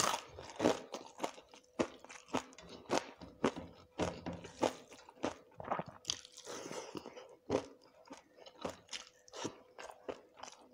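A person chewing crunchy food close to the microphone: a steady run of sharp crunches, two or three a second, with a brief rustling stretch about six seconds in.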